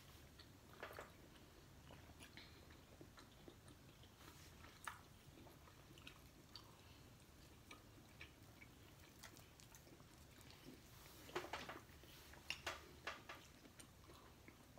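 Faint chewing and eating sounds, with scattered small clicks and taps of plastic forks in foam takeout trays; a few louder clicks late on.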